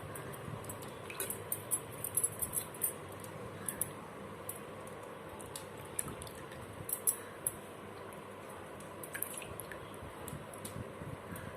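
Vegetables being rinsed and handled in a basin of water: faint scattered clicks and drips over a steady low background hum, thickest about a second or two in and again about halfway through.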